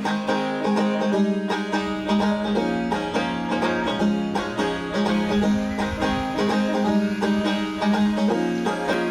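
Background music: an acoustic instrumental intro with quickly plucked banjo and guitar notes in a bluegrass-country style.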